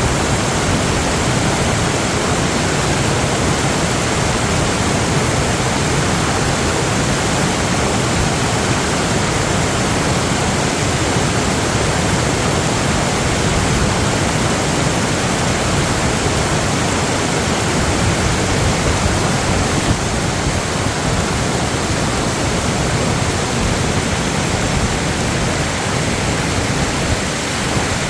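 Steady, loud rush of water.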